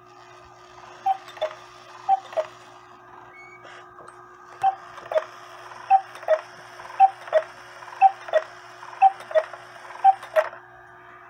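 Kuner cuckoo clock's bellows and pipes calling "cuckoo", a higher note then a lower one, eight times at about one call a second, with a short pause after the second call. The bellows sound fine.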